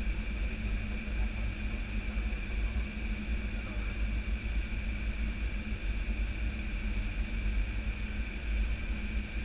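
Steady noise on the flight deck of an Airbus A320-214 on final approach: a deep, even rumble of airflow and engines with a steady high hum above it, unchanging throughout.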